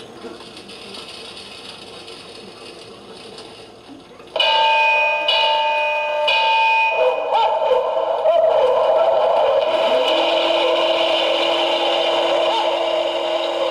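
Sound effects from a model fire-station accessory: a recorded alarm bell starts suddenly about four seconds in, ringing in strokes about a second apart, then changes to a wavering electronic tone, and a steady low tone joins about ten seconds in.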